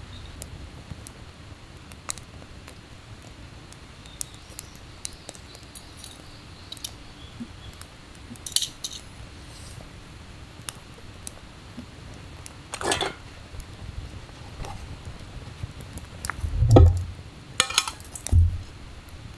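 Scattered light clinks and knocks of camp cookware and utensils being handled, with a few louder clatters and two dull thumps near the end.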